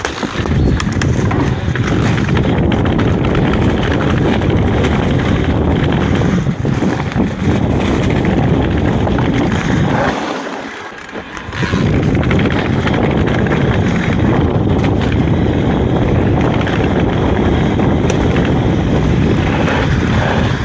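Mountain bike descending a rough trail: a steady rush of wind buffeting the microphone over the rumble of the tyres, with scattered clicks and rattles from the bike, and a brief lull a little past halfway.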